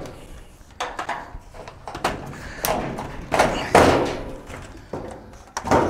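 Knocks and clunks of hands and a screwdriver handling a washing machine's cabinet and opened control console. There are about half a dozen separate knocks, the loudest a little before the middle.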